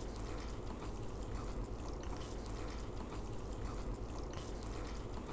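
Chicken pieces and tomato-onion masala sizzling steadily in a stainless steel kadai as they are stirred with a wooden spatula.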